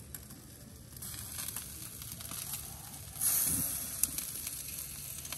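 Jerk chicken sizzling on the grate of an oil-drum grill over the fire, with fat crackling and popping in small ticks. A louder rush of hiss swells briefly about three seconds in.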